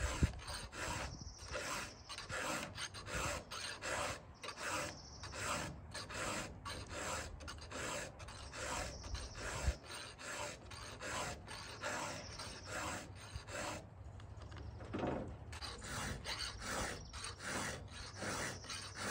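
Round file rasping across the cutter teeth of a chainsaw chain, hand-filed in repeated short strokes, with a brief pause about three-quarters of the way through.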